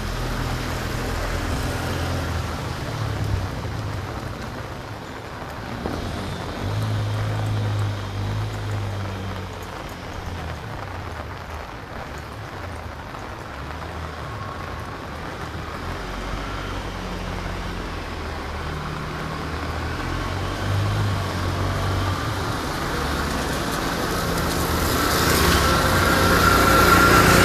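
Road traffic: vehicle engines passing by one after another, with a steady hum that comes and goes. Near the end it grows louder and a high pitched tone joins in.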